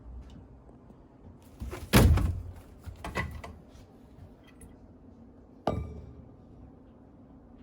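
Door or gate being handled: a heavy thud about two seconds in with rattling after it, more knocks a second later, then a sharp metallic clank near the end that rings briefly.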